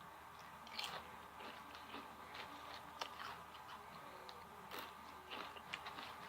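A person biting and chewing crunchy food close to the microphone: faint, scattered crunches and small clicks.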